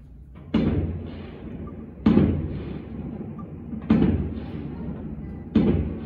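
Aerial firework shells bursting: four loud booms about a second and a half apart, each trailing off over about a second.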